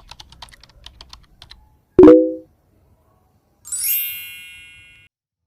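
Intro sound effects: a quick run of about a dozen typing-like clicks, then one loud hit with a short low tone, then a bright chime that sweeps up and rings out slowly.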